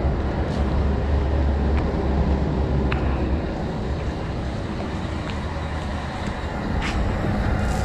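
Tour coach's diesel engine idling close by, a steady low rumble that eases after about three and a half seconds, with a few faint clicks over it.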